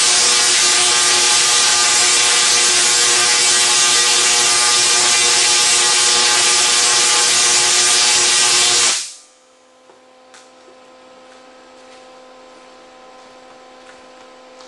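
SIDAC-driven Tesla coil sparking: a loud, steady buzzing hiss of the discharge arcs. It cuts off suddenly about nine seconds in when the coil is switched off, leaving a faint hum and a few small clicks.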